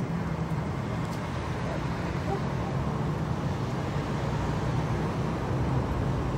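Steady low rumble of motor vehicles: a constant engine and traffic drone with no sharp events.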